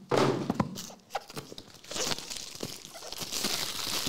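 Small cardboard trading-card boxes being handled, with several knocks as they are tapped and set down on the table. From about two seconds in there is a steady rustle of packaging.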